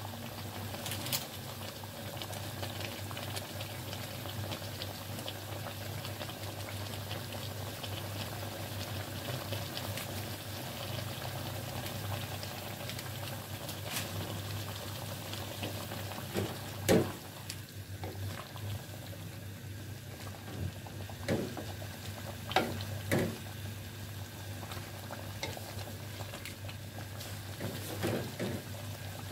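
Chicken simmering in oil and beaten yogurt in a metal pan, with a steady bubbling and sizzling over a low hum. A few short knocks and scrapes of a spatula against the pan break through, the loudest about halfway through.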